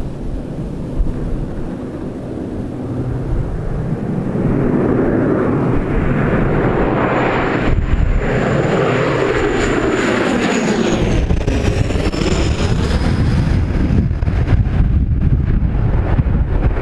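De Havilland Canada Dash 8-400's twin turboprop engines and six-bladed propellers growing louder on approach and passing low overhead, the pitch dropping as it goes by. Gusty wind buffets the microphone in the last few seconds.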